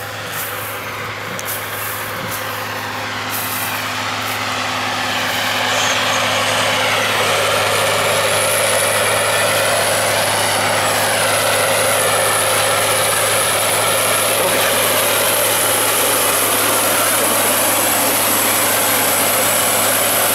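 Caterpillar Challenger MT865C rubber-tracked tractor pulling a TopDown 900 cultivator through stubble, its diesel engine working under load with a steady hum. It grows louder over the first several seconds as it draws close, and a steady high whine joins it.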